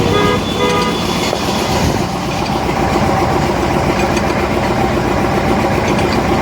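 Engine running steadily, with a few short horn-like tones in the first second.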